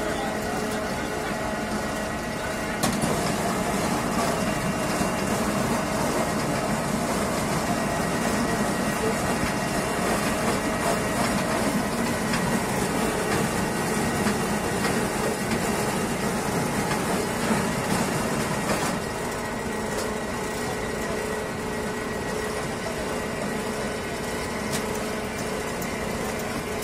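Trailer-mounted apple press running: its elevator and mill make a steady mechanical rumble, louder and busier from about three seconds in until about nineteen seconds in.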